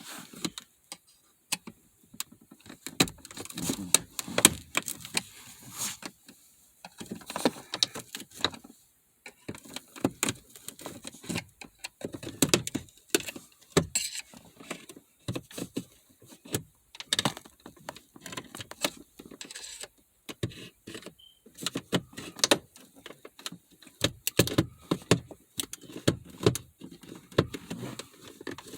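Irregular clicks, taps and rattles of hands working the gear shifter and shift knob of a 2012 Buick Verano, plastic and small metal parts knocking and snapping against each other.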